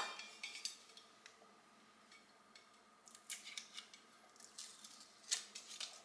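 A few faint clicks and clinks of kitchen items being handled and put away. A sharp one comes at the very start, a cluster follows about three seconds in, and another comes near the end.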